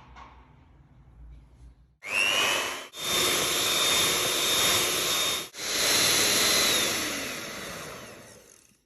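Small electric kitchen appliance motor running at high speed. It starts about two seconds in with a whine that rises in pitch, is broken by two short gaps, then winds down and fades near the end.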